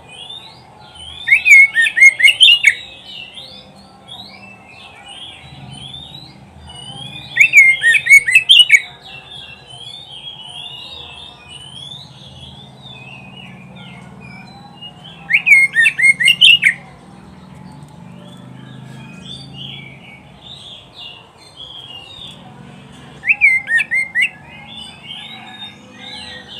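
Oriental magpie-robin (kacer) singing: a soft, varied warble goes on throughout, broken four times by loud bursts of rapid, repeated sharp notes, each about a second and a half long.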